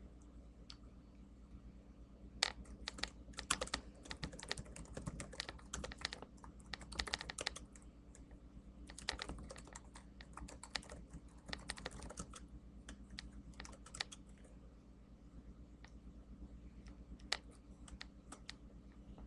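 Typing on a laptop keyboard, picked up close by the laptop's own microphone: bursts of rapid key clicks for about ten seconds, then a few scattered taps near the end, over a low steady hum.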